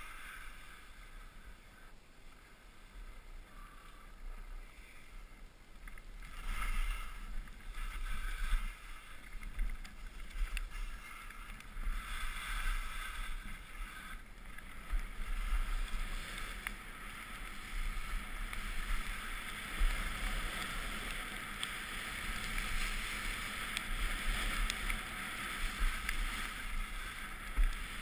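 Snow hissing and scraping under a rider going down a ski slope, with low wind rumble on a body-worn GoPro. It gets louder about six seconds in and stays louder from about twelve seconds on.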